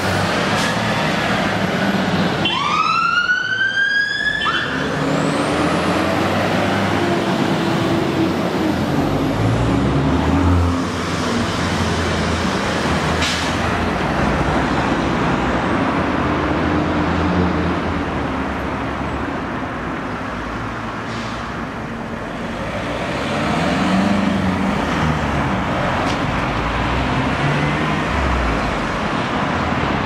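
Fire engines passing one after another on a response: their diesel engines rev up in several separate swells over road noise. A siren sweeps up briefly about three seconds in.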